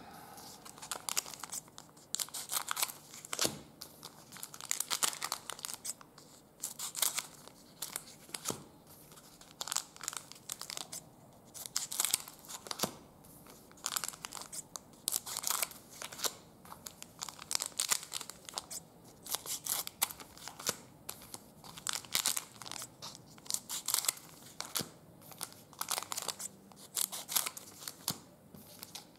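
Trading card pack wrappers being torn open and crinkled, with many quick, irregular crackles throughout.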